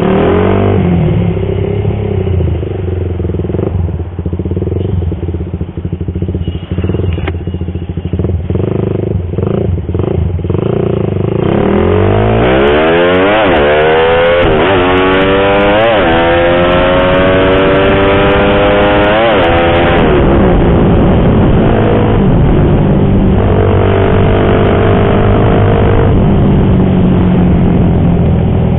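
Suzuki Satria FU single-cylinder four-stroke engine, bored out to 200cc, heard from the rider's seat while riding. It runs low for a while, then from about twelve seconds in it pulls hard, its pitch climbing and dropping back at each of several quick upshifts. After that it settles to a steadier note at cruising speed.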